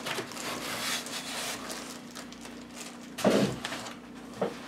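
Plastic wrap and foam packing rustling as an LED grow-light board is lifted out of a cardboard box, then a thud about three seconds in as it is set down, and a lighter knock near the end.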